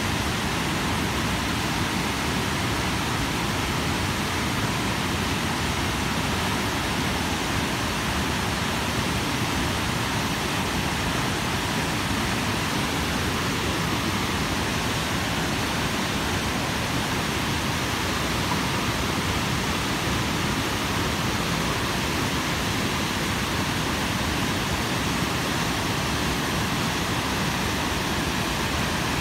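Water pouring over a concrete dam spillway: a steady, even rush of falling water.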